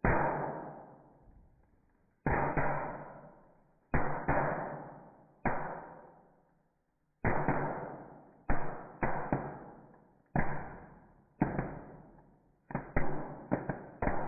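Small firecrackers bursting one after another inside a clamped plastic bottle, played back in slow motion. About a dozen bangs come at uneven intervals, each slowed into a deep, dull boom that fades over about a second. Several come close together near the end.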